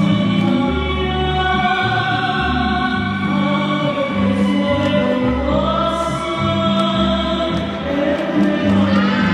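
Music with choral singing: held sung notes over a pulsing bass line.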